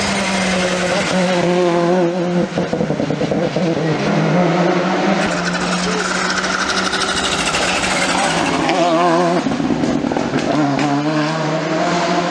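Rally cars at racing speed on a tarmac stage, engines revving hard and pitch shifting up and down through gear changes as one car passes and another follows.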